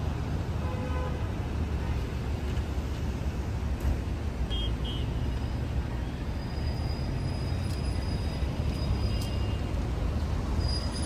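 Car driving on a highway: a steady rumble of engine and road noise.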